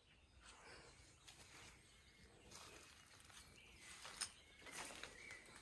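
Near silence: faint scattered clicks and crunches, with a faint high chirp near the end.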